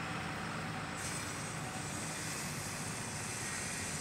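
Steady outdoor background noise: a low rumble with an even hiss over it, which grows a little brighter about a second in.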